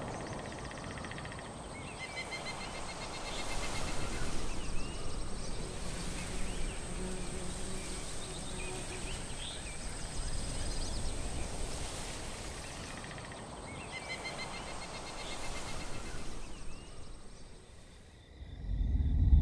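Woodland ambience at dusk. Insects trill in repeated pulsed bursts over a steady high insect drone, with a few short bird chirps among them. It fades away near the end, and a deep rumble swells in at the very close.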